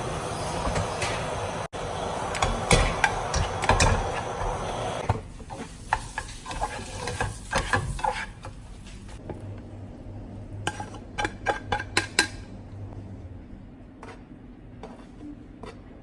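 Black spatula scraping and tapping against a non-stick frying pan while scrambled eggs are stirred and broken up, over a steady hiss from the cooking pan on the gas hob. The hiss drops away about five seconds in, leaving quick scrapes and taps, which thin out to a few scattered ones near the end.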